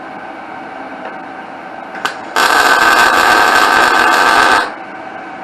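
Wire-feed welder striking an arc after a short click and welding for about two seconds, a loud burst that starts and stops abruptly, once the ground clamp is making contact.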